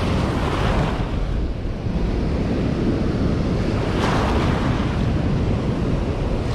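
Shallow surf washing in and out, with a fresh surge of foaming wash about four seconds in. Wind buffets the microphone with a low rumble throughout.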